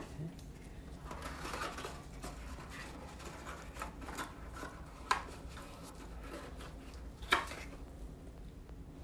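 Cardboard box and its packaging handled by gloved hands: rustling and crinkling as the contents are pulled out, with two sharp clicks about five and seven seconds in.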